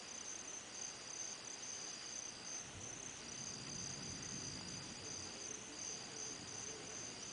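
Night insects trilling steadily at a high pitch, two trills overlapping. The lower one breaks off briefly about every two seconds, while the higher one pulses rapidly.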